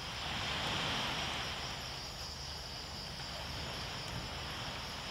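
Steady chorus of insects, a constant high-pitched buzzing. A broad rush of noise swells and fades over the first two seconds.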